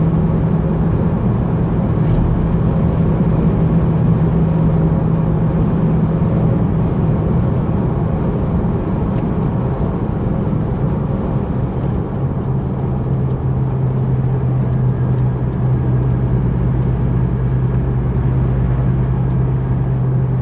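Chevrolet S10 pickup driving through a curve, heard from inside the cab: a steady droning hum over road noise, the strange humming noise the truck makes in curves. About twelve seconds in the hum drops to a lower pitch and holds there.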